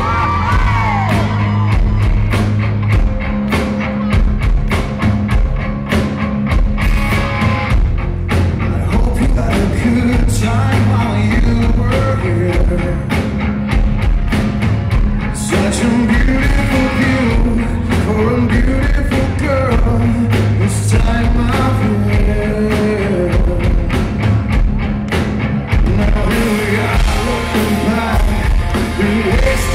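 Live rock band playing loudly: electric guitars, bass and drums, with a man singing lead.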